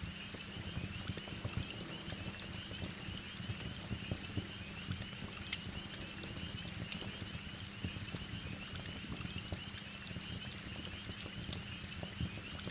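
Steady heavy rain with scattered sharp crackles and pops from a wood fire.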